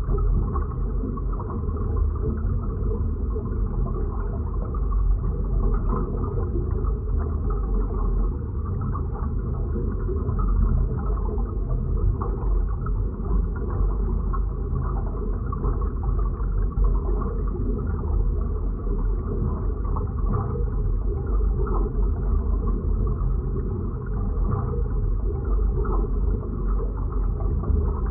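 Designed science-fiction underwater or space ambience: a continuous, deep, muffled rumbling drone that holds steady without breaks.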